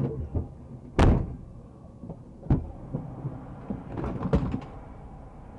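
A few sharp knocks or thumps, the loudest about a second in, another at about two and a half seconds and a quick cluster near four seconds, over a low steady traffic rumble.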